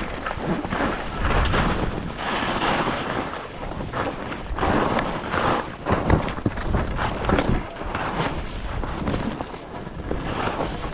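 Wind rushing over a skier's action-camera microphone, mixed with the hiss and scrape of skis turning on chopped-up snow, swelling and easing with each turn.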